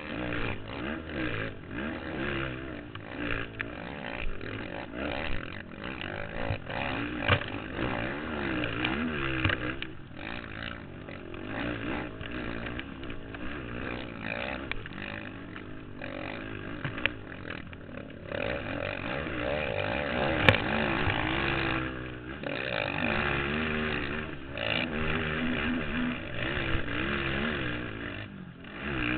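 A racing quad's engine heard from on board, revving up and down again and again as it is ridden hard around a dirt motocross track, with knocks and rattles from the rough ground. A single sharp knock about twenty seconds in is the loudest moment.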